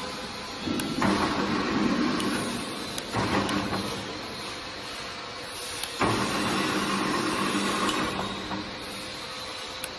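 Electric drive motor and gearbox of a welding rotator running with a steady hum in spells of a few seconds, started and stopped several times from a wireless remote, with quieter pauses between.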